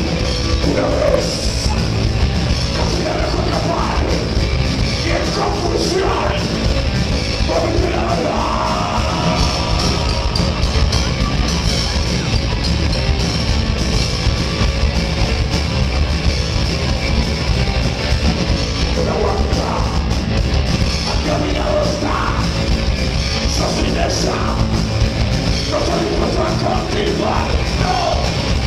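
Heavy metal band playing live, loud and dense throughout, with a singer's vocals coming in for stretches over the band.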